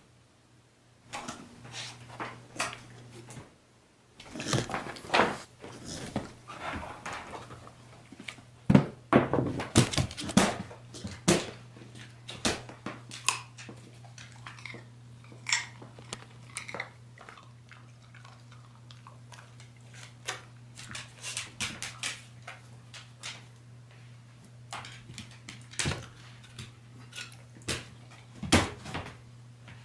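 A beagle's paws and claws clicking and thumping on a hardwood floor as it jumps and snaps at a carrot dangling on a string: many sharp irregular clicks and knocks, heaviest about a third of the way in. A steady low hum runs underneath.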